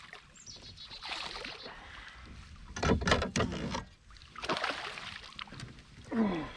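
Water splashing beside a kayak as a hooked bass thrashes at the surface during landing, in bursts, loudest about three seconds in and again about a second later.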